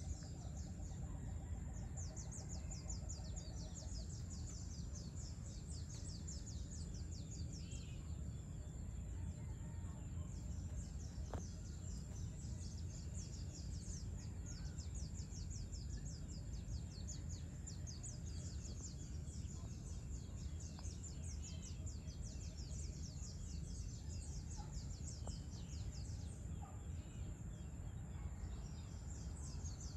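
Outdoor dusk ambience: insects keep up a fast, pulsing high-pitched trill throughout over a steady low rumble, with a few faint bird calls scattered through.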